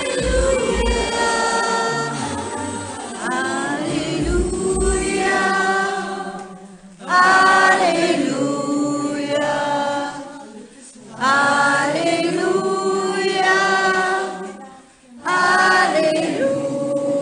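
A small group of men and women singing together, sung phrases about four seconds long with short breaks between them.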